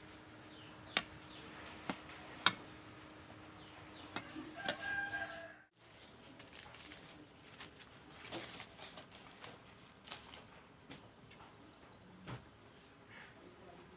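A few sharp knocks and clatters, like utensils being handled, over faint bird chirps and clucks in the background; the sound drops out for an instant about six seconds in.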